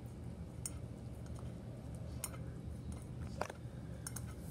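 A dog licking an empty ceramic plate on a tile floor, with a few sharp clinks as the plate and her collar tag knock about; the loudest comes a little over three seconds in.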